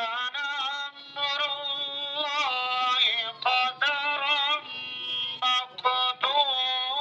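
A man chanting Quranic recitation (tilawat) in long, wavering melodic phrases with short breaks for breath, amplified through a microphone and horn loudspeaker.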